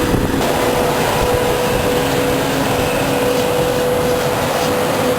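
Heavy road-construction machinery running steadily, a dense engine-and-mechanical noise with a steady whine held over it.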